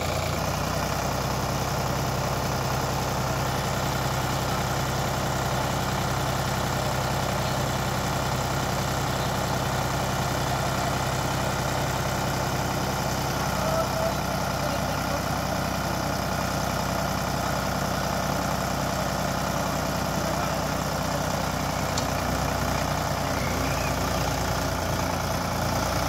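Sonalika DI 35 tractor's diesel engine running steadily at constant speed while it powers the hydraulic lift tipping a loaded soil trailer.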